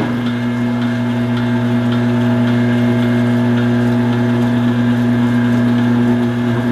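Cabela's Carnivore 3/4 HP electric meat grinder motor running at speed with a steady hum.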